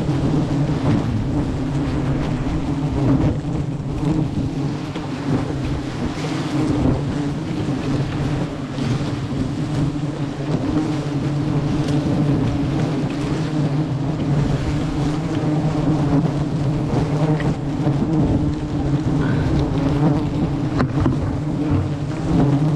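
A swarm of giant honey bees (Apis dorsata) buzzing close around, a dense steady drone from a disturbed colony whose comb is being cut from the tree.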